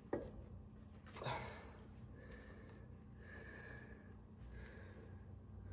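A man breathing hard as he strains on a long bar on the ratchet, with a sharp exhale about a second in. There is a short click at the start and a few faint, thin high squeaks after it.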